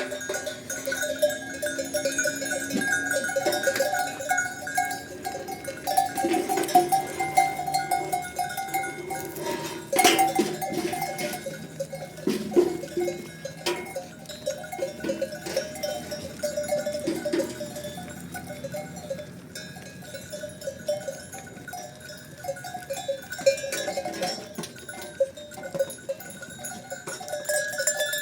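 Bells on a flock of sheep and goats clinking and ringing continuously, with occasional bleats from the flock and a sharp knock about ten seconds in.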